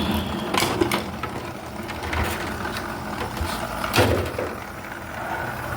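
Plastic housing of a running portable air conditioner being pried apart by hand, with several sharp clicks and knocks as the case comes loose, over the unit's steady running hum.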